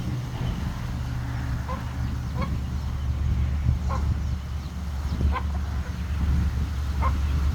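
Chickens giving about five short clucking calls, spaced a second or more apart, over a steady low rumble.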